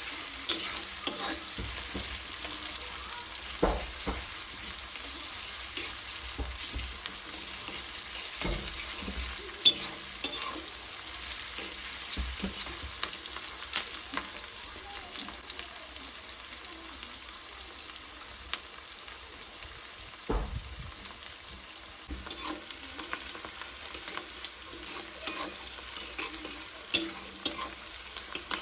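Food sizzling in hot oil in a pan while being stirred, with a steady hiss broken by scattered scrapes and knocks of the utensil against the pan.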